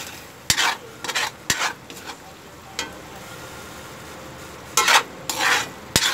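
Metal ladle scraping and knocking against an aluminium wok as a sardine and tomato sauce is stirred, over a low steady sizzle of the simmering sauce. Several short scrapes come in the first two seconds, then a longer pair of scrapes about five seconds in.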